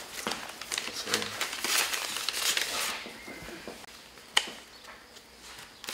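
Paper ballots rustling and crinkling as they are handled one after another, with a sharp click about four seconds in.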